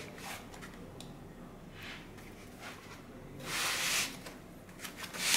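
Quiet handling noise as a metal-cased car stereo head unit and its cables are moved about on a foam pad, with one brief rubbing swish about three and a half seconds in.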